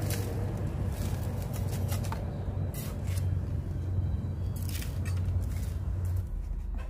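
A small hand scoop scraping into dry granular fill and tipping it into a plastic crate: a few short, scratchy scrapes and rustles at irregular intervals. A steady low hum runs underneath and cuts off about six seconds in.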